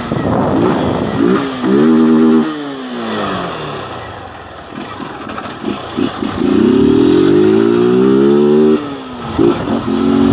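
Small motorcycle engine with its exhaust note changed by a washer fitted in the exhaust and the air-filter cover removed, being revved on the throttle. A short rev about a second in falls back to idle. A longer rev climbs for about two and a half seconds from six seconds in, then drops off, and a quick blip follows near the end.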